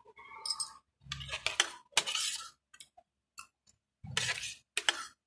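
Metal spoon scraping and clinking against a ceramic plate while scooping rice, in three main scraping passes with sharp clicks.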